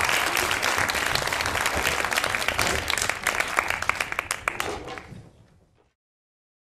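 Audience applauding, dense clapping that thins out and dies away about five seconds in.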